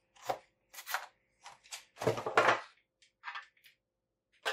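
Foil trading-card booster packs being handled and lifted out of a tin's plastic insert: a run of short crinkles and light knocks, the loudest about two seconds in.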